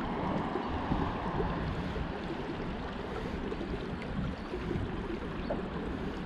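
Steady rush of river water flowing close past a wading angler, the river running high after a night's rain.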